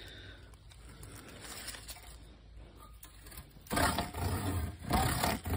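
A sweet gum stake driven into the ground is rubbed across its top in loud, buzzing strokes about a second long, starting about two-thirds of the way in. This is worm fiddling: the vibration sent into the soil drives earthworms up to the surface.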